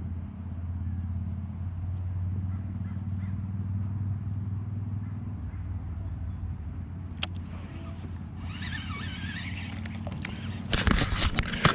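An engine running steadily with a low hum, then a burst of knocks and clatter near the end.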